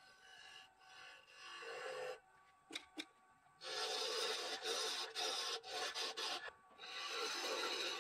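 A turning gouge cutting the base of a spinning walnut bowl blank on a lathe: two passes of scraping wood-cutting noise, the first starting about three and a half seconds in and lasting about three seconds, the second near the end. Before them the lathe runs faintly and the tool clicks a couple of times on the rest. This is the base being turned down to a spigot for a chuck to grip.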